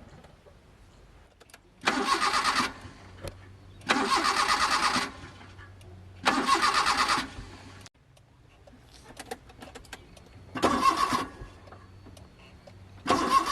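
Starter motor of an old Suzuki Mehran's three-cylinder engine cranking in five short tries of about a second each. The engine never catches: it won't start.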